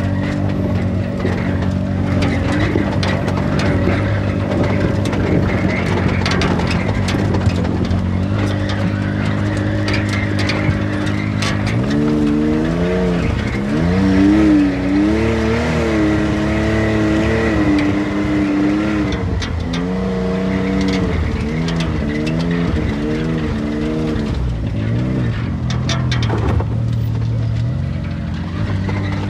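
Side-by-side UTV engine running at a steady pitch, then revving up and down repeatedly through the middle stretch as it drives off-road.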